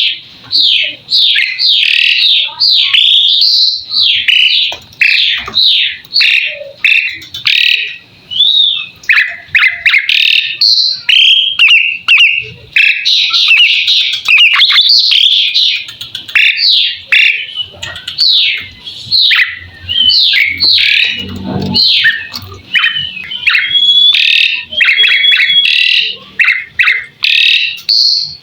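Javan pied starling (jalak suren) singing a fast, continuous song of short whistled notes, several a second, each sweeping up or down in pitch.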